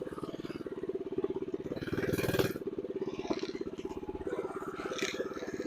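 Mini bike's small single-cylinder engine running at a steady idle on a newly fitted upgraded carburetor, with a brief louder rush about two seconds in. It sounds like it wants to die, which the owners think may be because it still needs to warm up.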